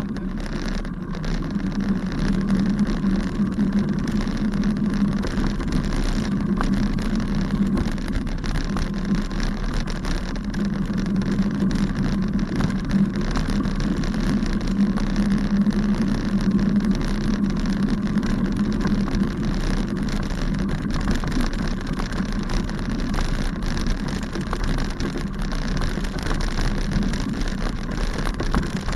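Steady rumble and rattle of a bicycle rolling along a bumpy dirt path, with many small knocks from the bumps and wind on the microphone of a bike-mounted camera.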